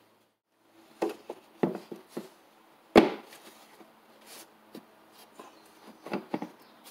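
Honda Ridgeline's plastic engine cover being set back on and pressed down onto its mounts: a string of knocks and taps starting about a second in, the loudest about three seconds in.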